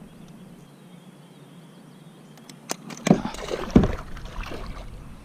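Quiet for about three seconds, then a few sharp clicks and two loud thumps with water splashing and sloshing against a kayak, fading out over the next second or so.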